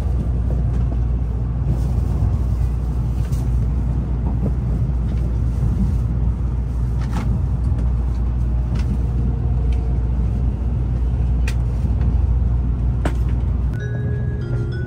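Steady low rumble and running noise inside the cabin of a moving Shinkansen bullet train, with a few sharp clicks. About a second before the end the deep rumble drops away and faint steady tones come in.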